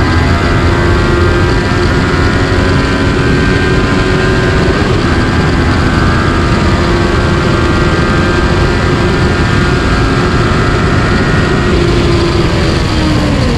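Motorcycle engine running at steady revs on track, buried in heavy wind noise at speed. Its pitch drops near the end as the rider rolls off.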